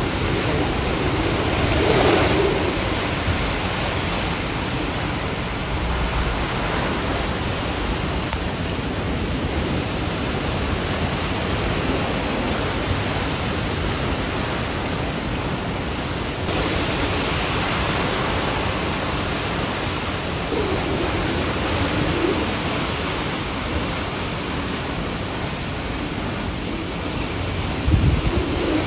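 Hurricane wind and rain beating on a parked car, heard from inside as a steady rush of noise. Gusts swell about two seconds in and again near the end.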